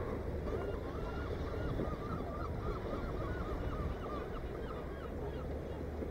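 A bird calling in a rapid run of short, squawking notes, stopping about five seconds in, over a steady low rumble.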